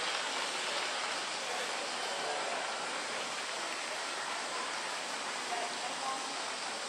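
Steady, even hiss of station platform ambience, with no rise or fall in level.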